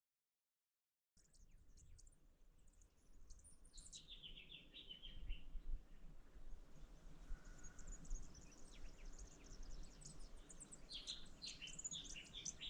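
Faint early-morning birdsong: several birds chirping and trilling in short high notes over a low background hum, starting after about a second of dead silence.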